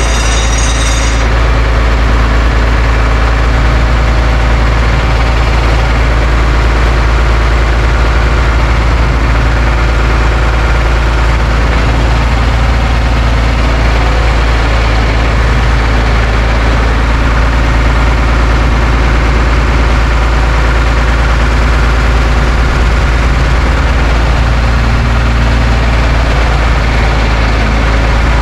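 A heavy engine idling steadily with a deep, even drone. A short hiss sits on top of it for about the first second.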